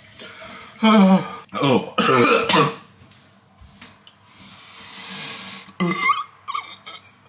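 A young man coughing and hacking in short loud fits, about a second and two seconds in and again near the end, choking on a mouthful of dry creatine powder and water.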